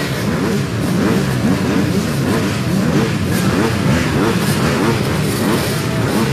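A line of motocross dirt bikes revving at the starting gate: many engines at once, their notes rising and falling over each other without a break.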